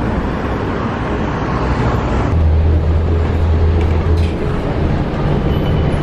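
City traffic and a city bus running: steady road and engine noise, with a low engine drone that is strongest in the middle.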